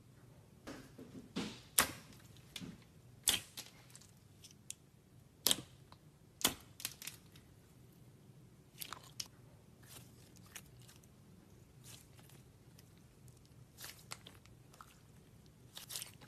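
Clear slime being squeezed, poked and stretched by hand, giving irregular sticky clicks and pops, the loudest in the first seven seconds.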